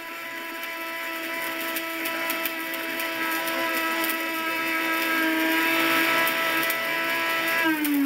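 High-powered countertop blender running at full speed with a steady motor whine, grinding a tape measure whose pieces rattle in the jar. Near the end the motor shuts off and winds down, its pitch falling sharply.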